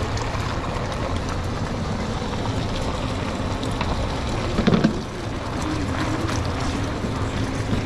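Steady commercial-kitchen background noise: a constant low rumble and hiss, with a few light clicks and one short, louder low sound near the middle.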